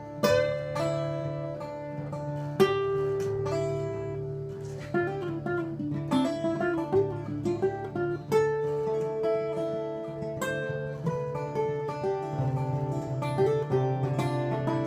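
Two acoustic guitars playing together, with strummed chords and picked single-note melody lines over a steady low bass part. There are strong chord strikes near the start and about two and a half seconds in.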